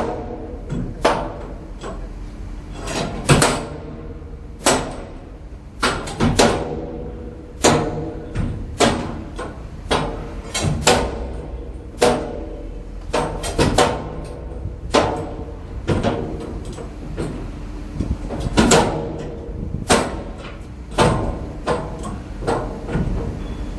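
Background music with a steady percussive beat, a struck, ringing hit about every second over sustained tones.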